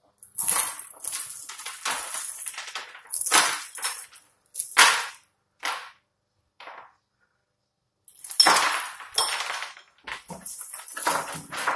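Metal necklace chains and pendants jingling and clinking together as they are handled on a jewellery rack, in irregular bursts with short pauses between them.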